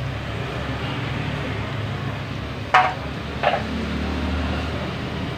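Two sharp clinks of hand tools against the motorcycle engine's metal parts, the louder one about halfway through and a weaker one under a second later, over a steady low background rumble.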